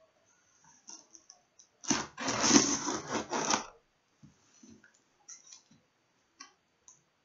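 Unpacking noises: packing material rustling in one loud burst of about two seconds, starting about two seconds in, with scattered light clicks and taps of plastic containers being handled and set down.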